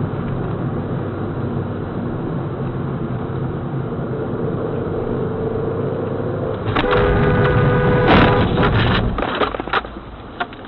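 Steady driving noise of a car picked up by a dashcam, with a faint rising whine. About seven seconds in comes a loud two-second burst of sharp knocks and clatter over a held tone, the loudest part, typical of a collision or near-miss caught on a dashcam.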